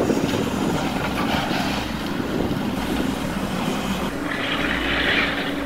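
John Deere hydraulic excavator's diesel engine running steadily while it tears at a building's canopy, with a burst of higher crunching and cracking noise about four seconds in.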